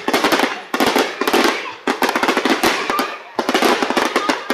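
Fireworks going off in dense, rapid volleys of cracks and pops, coming in clusters about a second or so apart.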